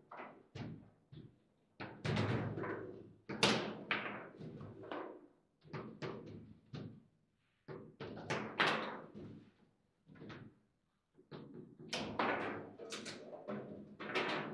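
Foosball table in play: the ball being struck by the rod-mounted figures and knocking around the table, with rods clacking, in irregular flurries of sharp knocks and thuds separated by short pauses.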